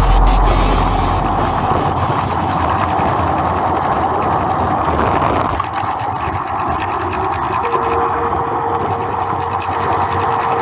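Bicycle riding noise picked up by a handlebar-mounted camera: tyres rolling on a concrete road with the rattle of the mount and bike, a steady noisy rush. A faint steady tone joins about eight seconds in.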